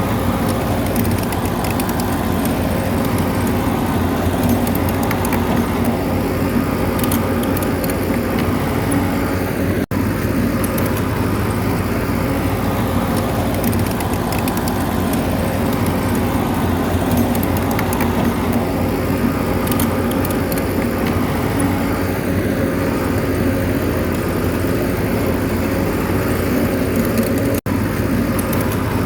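Bulldozer's diesel engine running steadily under load, with faint clicking from the machine, broken twice by a momentary gap.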